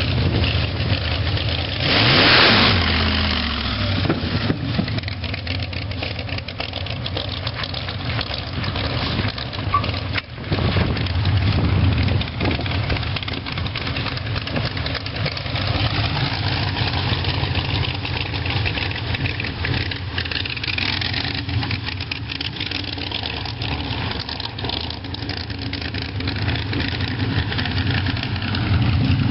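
A hot rod's engine running, with a loud rev about two seconds in, then running steadily, with a brief dip about ten seconds in.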